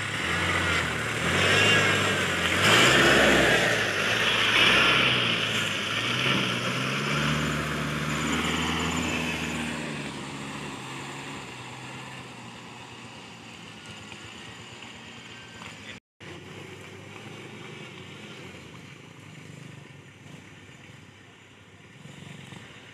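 Toyota LN106 Hilux pickup's diesel engine revving and pulling away, its pitch rising and falling with the throttle. It is loudest in the first few seconds, then fades to a quieter steady run.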